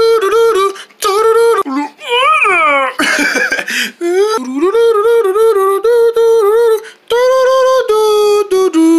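A high voice humming a wordless jingle in short held notes, with a falling vocal slide about two seconds in and a breathy hiss just after.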